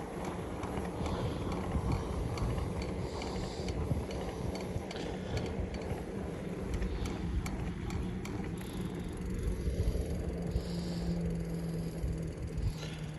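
Wind rumbling over the microphone on a moving bicycle, with the rider's heavy breathing and scattered light clicks. A steady low hum joins in about halfway through.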